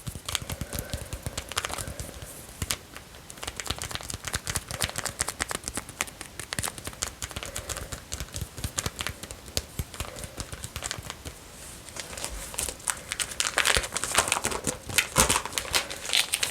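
Plastic trading-card sleeves crinkling and rustling under the fingers as Pokémon cards are handled, in a dense run of small crackles and scratches that gets busier and louder near the end.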